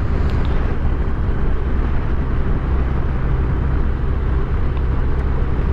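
Yamaha FJR1300's inline-four engine running steadily as the motorcycle is ridden, with a continuous rush of wind and road noise over it.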